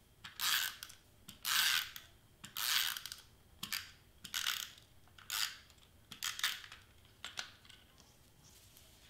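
Handheld double-sided tape runner drawn along the back of a cardstock piece in about eight short scraping strokes, roughly one a second, stopping a little over seven seconds in.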